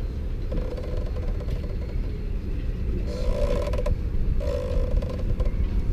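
A rag rubbed over the bronze base of a dismantled Lewmar sailboat winch, squeaking in short strokes, over a steady low rumble.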